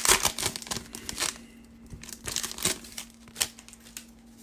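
Foil wrapper of a Panini Certified football card pack crinkling as it is torn and pulled open, dense and loud for about the first second, then a few short, separate crinkles.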